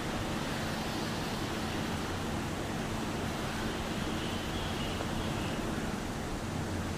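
Steady rain falling, an even unbroken hiss, with a faint low hum underneath.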